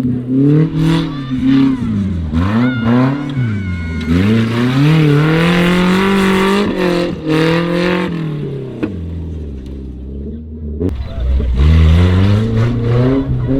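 Off-road 4x4 competition vehicle's engine revving hard and unevenly, its pitch swinging up and down repeatedly. A long high-revving pull comes in the middle, the engine drops back to low revs, and it revs up again near the end.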